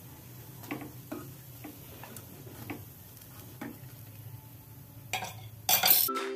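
A metal fork clicking and scraping against a metal wingko mould pan as the cooked cakes are lifted out, six separate clicks over a steady low hum. A louder burst of handling noise near the end, then the sound cuts off and music begins.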